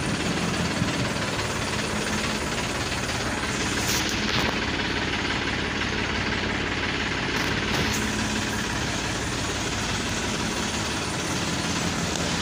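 An engine or motor running steadily: a low hum under a constant hiss, unchanging throughout.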